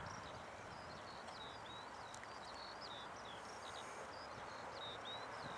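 A small bird singing a continuous run of short, high, quick chirps over a steady low background hiss of open-air noise.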